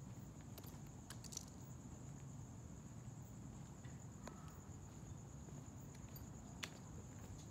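Crickets chirping in a steady, high, pulsing trill over a low rumble, with a few sharp clicks scattered through.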